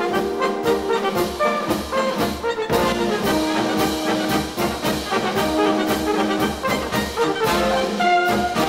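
Instrumental music led by brass, with trumpets and trombones over an orchestra, playing with a steady beat.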